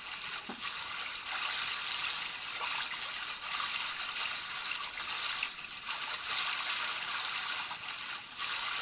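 Babbling brook recording played from a Pure Enrichment WavePremium sleep sound machine: a steady gurgling, trickling stream with a soft, even hiss.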